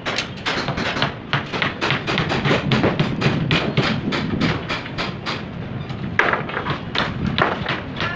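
Rapid, irregular knocks and taps, about four a second, over a low rumble, with a brief lull about five seconds in.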